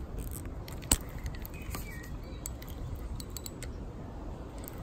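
Handling noise on a handheld phone microphone with a steady low wind rumble, scattered small clicks and one sharp click about a second in.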